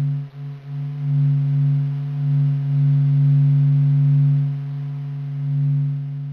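Sonification of the Sun's sound waves: helioseismic surface vibrations measured from spacecraft data and sped up into hearing range. It is a low, steady hum with fainter higher overtones that slowly swells and ebbs.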